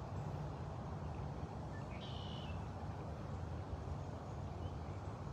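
Steady low outdoor background rumble, with a brief high chirp about two seconds in.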